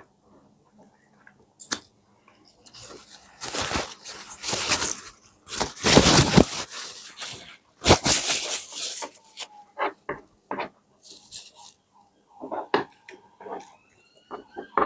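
Close-miked eating of stewed pig trotters: chewing, smacking and tearing at the meat, loudest through the middle, then scattered clicks of a spoon and fork on the plate near the end.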